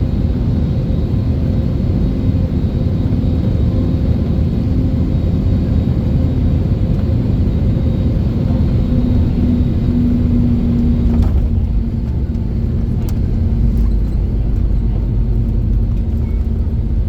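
Airbus A320 cabin noise during landing: a steady low rumble of engines and airflow with a hum in it. About eleven seconds in there is a short knock, after which the hum changes and the deep rumble grows.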